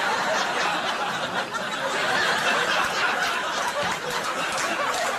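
Studio audience laughing in a sustained wave right after a joke's punchline.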